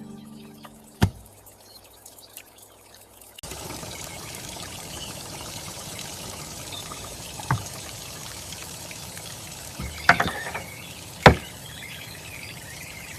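Water pouring steadily, starting a few seconds in, with a few sharp clinks of kitchen utensils.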